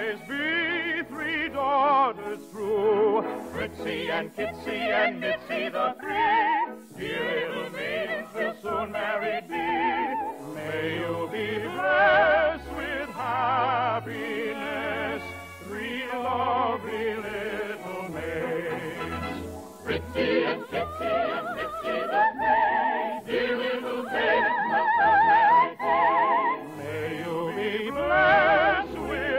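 Operetta singing in the classical style with orchestral accompaniment: voices with wide vibrato, continuous with no break. Narrow, muffled sound of an old broadcast recording.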